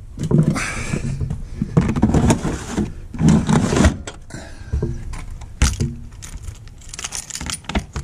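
A Thetford C2 plastic toilet cassette is slid back into its housing in a caravan's outside hatch, with several scraping, rattling pushes. A few sharp knocks follow as the hatch door is shut, and near the end a bunch of keys jangles in the hatch lock.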